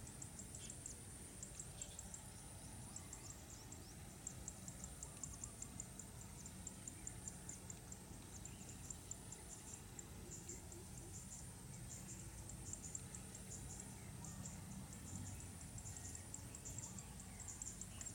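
Insects chirping in rapid pulses, with a faint low drone underneath.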